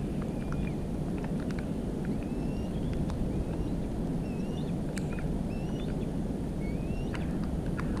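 Steady low rumbling noise, over which faint short whistled bird calls, several sliding up or down in pitch, come every second or so, with scattered soft clicks.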